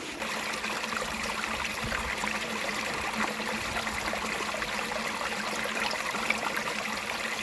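Spring water from a water mine running and trickling steadily into a pond, with a faint steady hum underneath.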